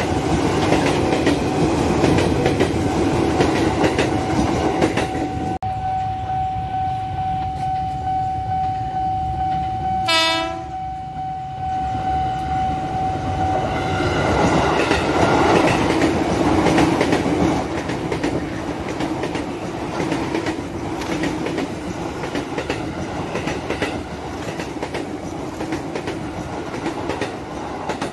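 Electric commuter trains passing over a level crossing, wheels clacking on the rails, with one short horn blast about ten seconds in from an approaching JR 205 electric multiple unit. A steady high tone, the crossing's warning signal, sounds until about halfway through.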